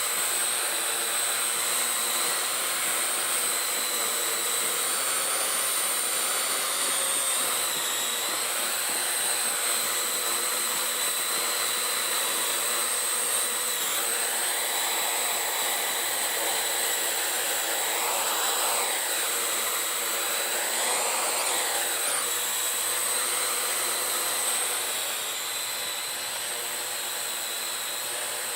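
Parrot AR.Drone 2.0 quadcopter's four electric motors and propellers whining steadily in flight. The pitch swoops up and down twice about two-thirds of the way in, and the sound drops a little in level near the end.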